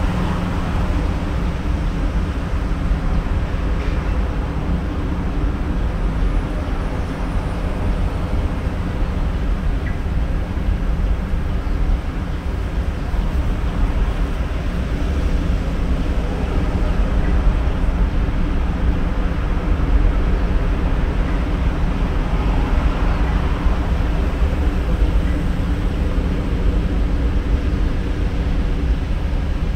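Steady outdoor ambience: a low, even rumble of distant road traffic with a constant mechanical hum under it.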